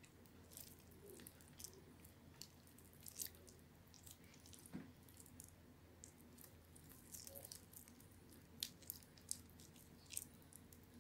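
Soft, wet, crumbly soap being squeezed and pulled apart between fingers: faint squishing with scattered small crackles at irregular moments, a few louder ones near the middle and toward the end.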